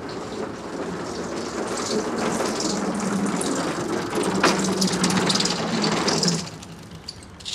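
Walk-behind lawn mower being pushed along a tiled floor, giving a steady noise that stops about six seconds in.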